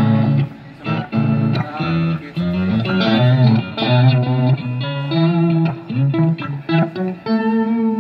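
Electric guitar played through a Marshall MG30FX combo amp on its crunch channel with the octave effect switched on: a phrase of single notes, each held briefly before moving to the next pitch.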